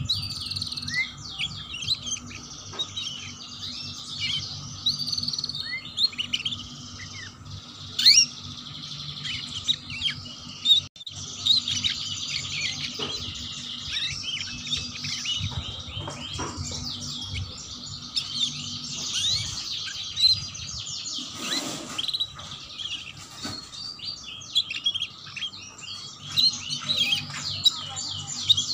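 Domestic canary singing a fast, rough 'ngeriwik' chatter: a dense stream of quick high chirps and trills, over a faint steady hum.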